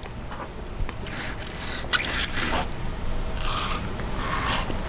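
Fillet knife slicing and scraping between the thick skin and the flesh of a permit fillet on a plastic cutting board. The strokes are short and irregular, with a few sharp clicks, over a low steady background rumble.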